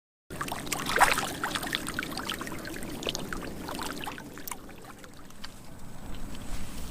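Shallow muddy water splashing and sloshing in many small irregular splashes, busiest and loudest in the first few seconds.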